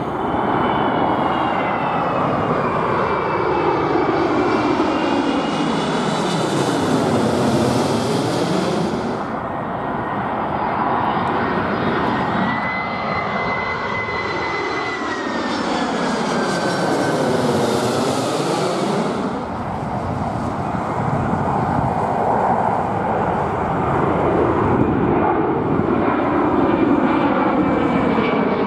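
Twin-engine jet airliners, an Airbus A330 and a Boeing 767, flying low overhead on approach one after another. The jet noise swells to two loud passes, about a quarter and about two thirds of the way through, and high fan whines slide down in pitch as each aircraft goes by.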